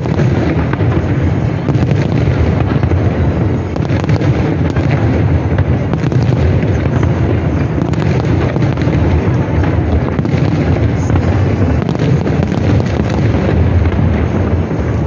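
Large aerial fireworks display going off continuously: a dense barrage of low booms with sharp cracks and pops throughout.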